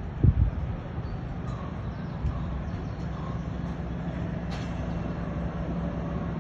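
Steady low rumble with a faint hum, typical of a cruise ship's engines and machinery, with brief wind buffeting on the microphone just after the start.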